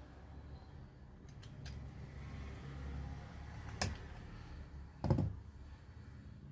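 Light metallic clicks and taps of parts and tools being handled during bench repair of a starter motor: a few small clicks, a sharper click near the middle, and a heavier knock about five seconds in, over a low steady hum.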